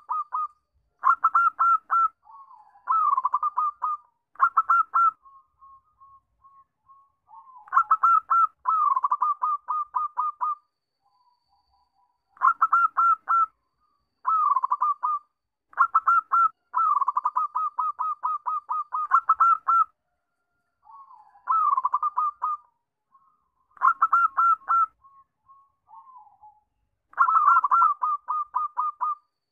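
Zebra dove (perkutut) cooing: quick runs of staccato notes, about eight a second, in repeated bursts of one to four seconds with short pauses between.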